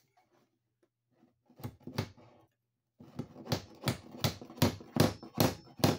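Hammer blows driving a steel nail protector plate onto the wooden sill plate over a cable: two blows about a second and a half in, then a steady run of about seven sharp blows, roughly two and a half a second.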